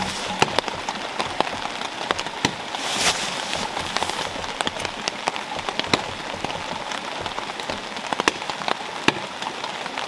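Rain falling on a tarp overhead: a steady hiss with many sharp drop hits scattered through it.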